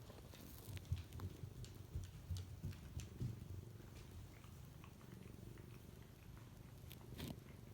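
A domestic cat purring faintly, a low rumble that swells and fades in a steady rhythm, with a few light clicks.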